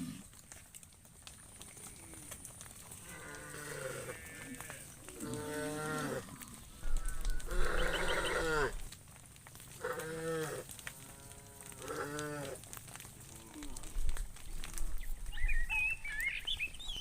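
Cattle calling, with about six separate moos and bawls one after another, the loudest near the middle. A few higher chirps come near the end.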